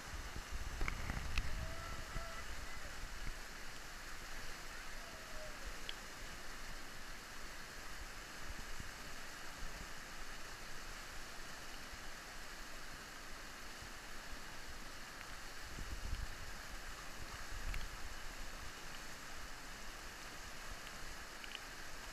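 River whitewater rushing steadily through a rapid and standing wave. A few low rumbles come near the start and again about two-thirds of the way through.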